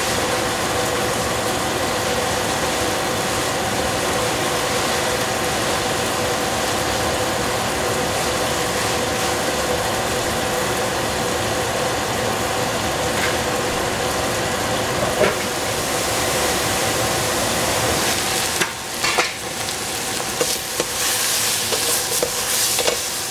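Baby cabbage cooking in a covered stainless steel pot, giving a steady sizzling hiss. Near the end there are a few sharp knocks of metal, then a wooden spatula stirs the greens in the open pot with louder, uneven sizzling.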